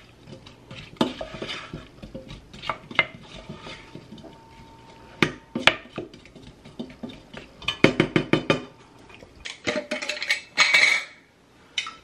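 Wooden spoon stirring diced apples in a stainless steel saucepan, knocking and scraping against the pan, with a quick run of about eight taps about eight seconds in.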